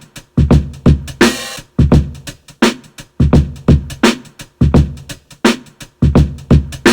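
Boom bap drum loop played from the Akai MPC Sample's stock drum sounds, a steady pattern of kick and snare hits. A longer hissy hit, like an open hi-hat or cymbal, comes about a second in and again near the end.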